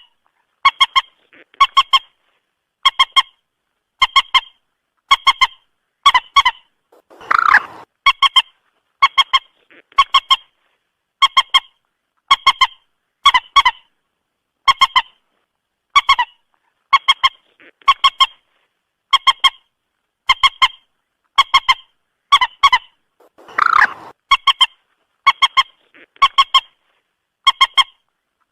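Moorhen calling over and over: short clucking calls about once a second, each a quick cluster of a few notes. Twice a longer, harsher call breaks in.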